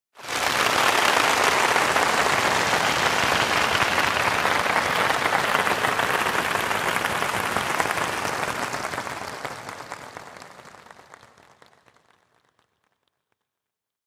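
A large audience applauding, a dense, even clatter of many hands. It starts at full strength, holds steady for about eight seconds, then dies away over the next four seconds to nothing.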